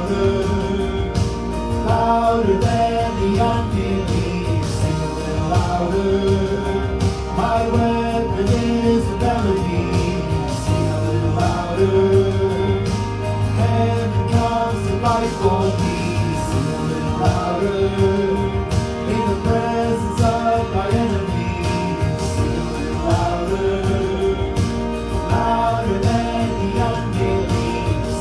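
Live church worship band playing a worship song, with voices singing over the band.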